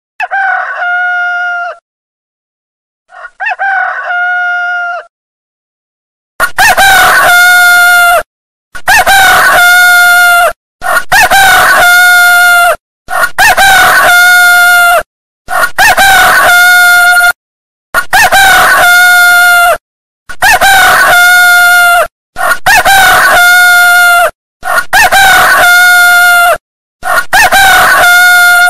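Rooster crowing over and over: two fainter crows, then from about six seconds in a run of about ten loud crows, each about two seconds long and all alike, one right after another.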